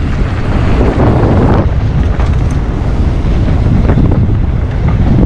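Heavy wind buffeting the action camera's microphone as an electric mountain bike rides a trail at speed, over a steady low rumble of tyres on the dirt.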